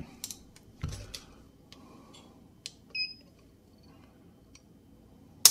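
Light handling clicks as the Bul Armory Radical 2011 pistol is reset, a short electronic beep from a Lyman digital trigger pull gauge about three seconds in, then a single sharp metallic click at the end as the trigger breaks and the hammer falls on the dry-fired pistol. The trigger breaks at about 1 pound 3 ounces.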